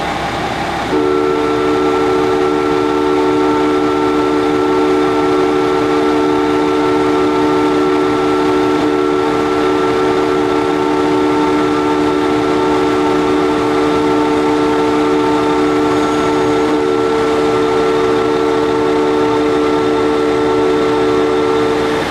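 Station platform departure signal: a loud, steady electronic chord of several fixed pitches that starts abruptly about a second in, holds unchanged for about twenty seconds and cuts off suddenly near the end, sounding while the train waits to depart.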